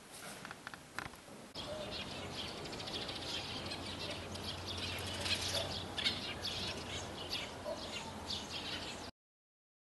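Birds chirping: many short, quick high calls over a low steady hum. They start suddenly about one and a half seconds in and cut off abruptly near the end.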